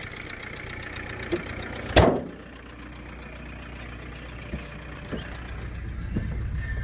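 Volkswagen 1.9-litre TDI four-cylinder turbo diesel (1Z/AHU) idling with fine regular ticking. About two seconds in there is a single loud slam as the hood is shut, and the engine then sounds duller and quieter.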